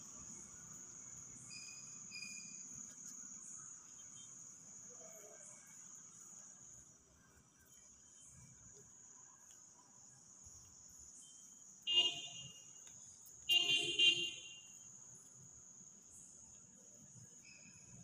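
Crickets chirping steadily and faintly. About two-thirds through come two short, louder sounds close together.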